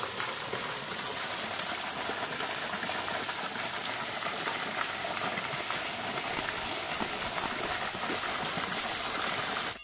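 Water jet from a pipe shooting up and splashing back down onto a pond, a steady hiss of spray and falling water.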